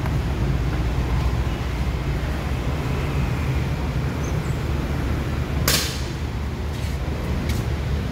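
Power liftgate of a 2022 Cadillac Escalade being released at its emblem button and swinging open, over a steady low rumble. A sharp click comes a little after halfway and a fainter one near the end.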